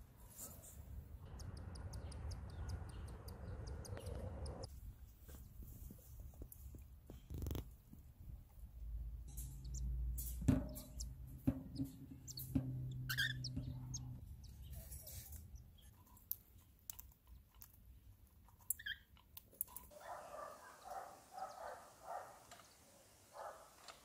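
Newly hatched cockatiel chicks peeping, a quick run of short chirps in the last few seconds, over scattered clicks and low rumbling.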